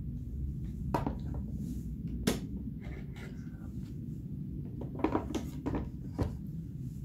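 Quick-release bar clamps being undone and a wooden router jig lifted off a door edge: a few sharp clicks and knocks, with a quick cluster of them about five seconds in, over a low steady hum.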